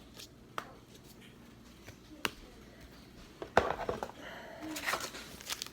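Trading cards and packaging being handled: a few light clicks, then a sharp knock about three and a half seconds in followed by rustling.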